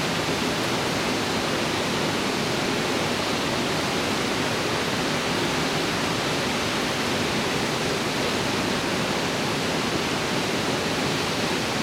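Steady rushing of river water, an even hiss that holds the same level throughout.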